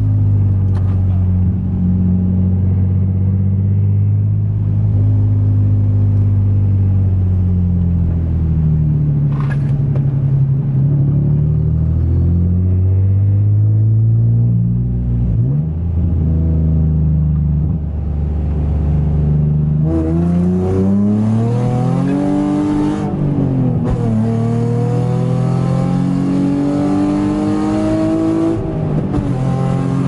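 Nissan 350Z's 3.5-litre V6 heard from inside the cabin, revving up and falling back again and again during spirited driving. From about twenty seconds in it is pushed harder, with quicker, higher rev sweeps and a harsher note.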